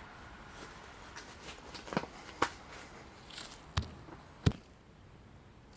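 A series of sharp knocks and clicks from things being handled, with four louder knocks about two seconds in, just before two and a half seconds, near four seconds and at about four and a half seconds.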